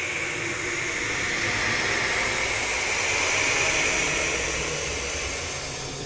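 Monster hiss sound effect: a long, breathy hiss that swells for a few seconds and eases off near the end, with a low rumble underneath.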